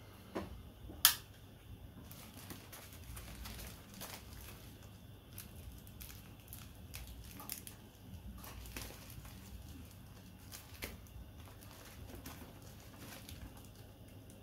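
Earbud packaging being handled and opened: faint crinkling and rustling with scattered light clicks, and one sharp click about a second in.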